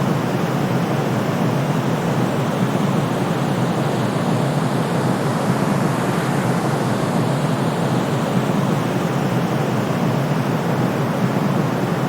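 Steady, unchanging white noise played as a sleep sound, a deep, even rushing with most of its weight in the low range.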